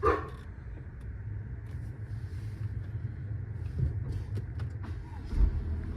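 2017 Infiniti Q50S engine idling with a steady low hum, with a few faint clicks and a low thump near the end.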